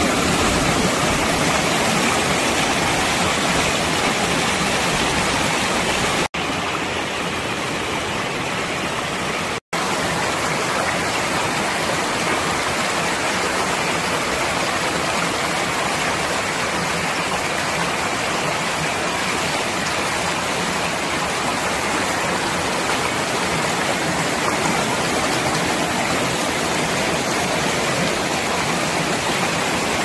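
Clear mountain stream rushing and splashing over rocks: a steady, full water noise. It drops out for an instant twice, about 6 and 10 seconds in, where the shots change.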